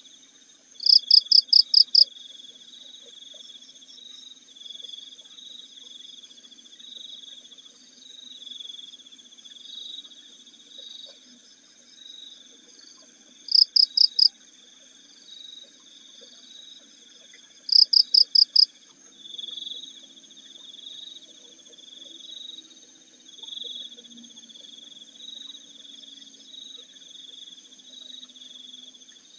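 Night insects, mostly crickets: a steady high drone under chirping that comes and goes. Three times, about a second in, near the middle and just past it, a much louder, higher burst of about five rapid chirps cuts in.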